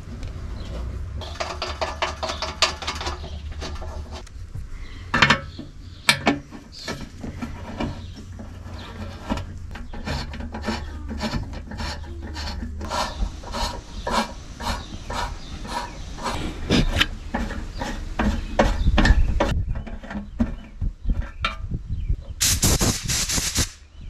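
A hand tap cutting M7 threads into the steel oil-pan flange holes: irregular metal scraping and clicking as the tap is turned back and forth. Near the end comes a short, loud hiss of compressed air from a blow gun aimed at the flange holes.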